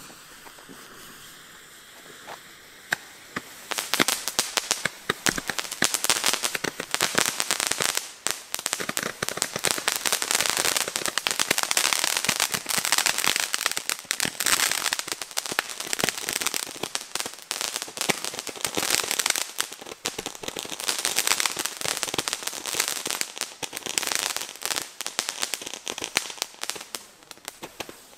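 Nico Kanonenrohr ground firework burning. It starts as a softer hiss, and about four seconds in it breaks into a dense, continuous crackling as it sprays sparks upward.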